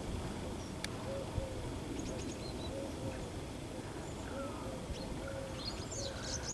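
A pigeon cooing over and over, short soft notes in small groups, with a few thin high bird chirps and a low steady rumble of wind.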